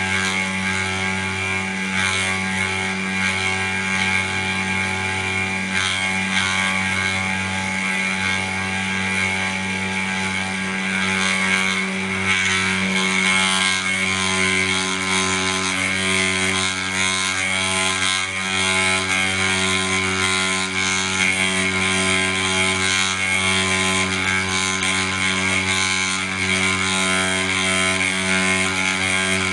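Snapmaker's CNC carving module running: a steady spindle motor whine with stepper-motor hum under it. Some of the hum tones come and go as the axes move.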